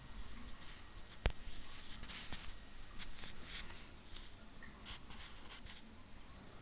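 Homemade bottle fish feeder working: one sharp click about a second in, then a few seconds of short, scratchy rattles.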